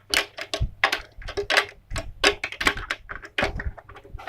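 A quick, irregular run of sharp clicks and clacks, several a second, like hard plastic toy parts and small tools being handled and knocked together.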